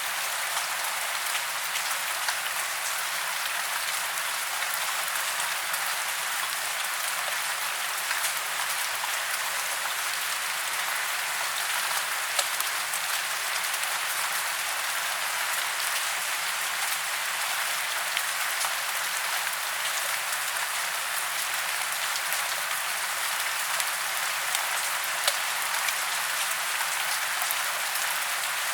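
Steady rain falling on tree branches and leaves: an even hiss of many small drops ticking, with a few louder single drops now and then.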